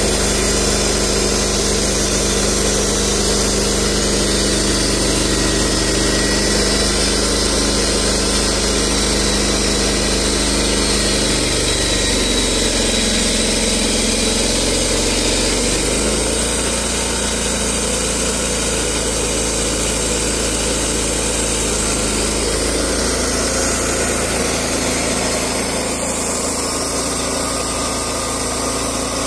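Portable band sawmill's engine running steadily as the saw head travels along the log; about halfway through its note shifts and wavers, then it settles a little quieter.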